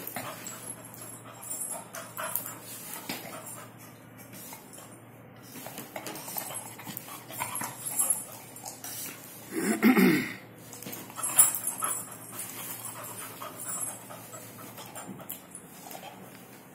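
Black Labrador puppy at play on a tiled floor: scattered clicks and scuffles of claws and a plastic ball, with one short, loud dog vocalisation about ten seconds in.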